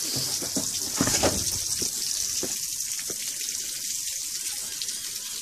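Water from a garden hose running through the outboard's flushing attachment and splashing onto a wet floor: a steady hiss, with a few light knocks in the first couple of seconds.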